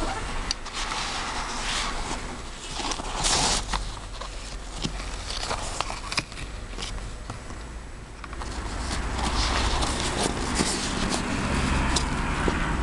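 Handling noise from a badminton racket's soft carry case worked close to the microphone: rustling and small clicks and knocks, with a louder rustle about three seconds in and a rising rustle in the second half.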